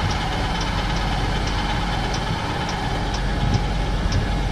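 Electric tongue jack on a travel trailer running steadily under power, with faint ticks a few times a second.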